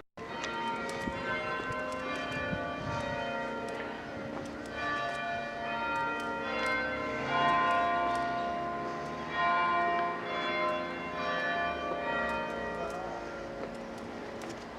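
Church bells ringing, several bells struck one after another in a continuous peal.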